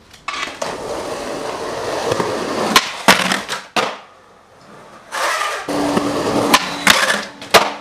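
Skateboard wheels rolling on pavement, broken by sharp clacks of the board a little under three seconds in and again near the end; the rolling stops briefly in between.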